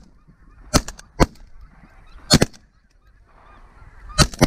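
Geese honking: short, separate honks in pairs and small clusters, about a second in, again midway, and a quick run of three near the end.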